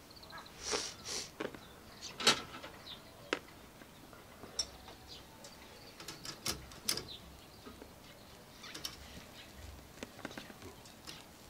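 Cooking utensils being handled: scattered light clicks and knocks, the loudest about two seconds in, with two short hisses about a second in.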